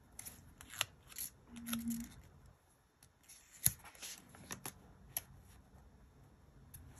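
Paper sticker being handled: light rustles and crinkles of a die-cut paper cloud sticker and its backing as it is peeled and pressed onto a planner page, with a few sharp clicks and taps.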